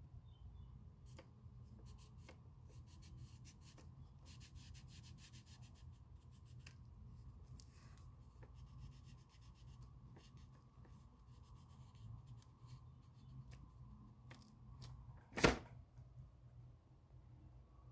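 Faint scratching of a wax crayon rubbed rapidly back and forth on paper as a small area is coloured in, in two runs of strokes. A single sharp knock comes near the end.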